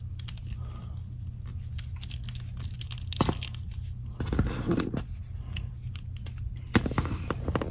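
Handling noise of a plastic action figure being posed by hand: scattered small clicks and rustling as its legs are bent at the joints, busier about three, four and a half, and seven seconds in, over a faint steady low hum.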